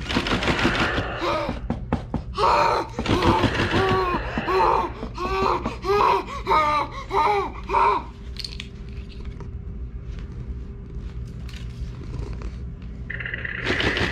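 A child yelling into a toy crate in a string of short, high-pitched shouts, with a few thuds on the box, as part of the toy's yell-and-knock steps for releasing the animal inside. The shouting stops about eight seconds in, leaving a quieter steady hum.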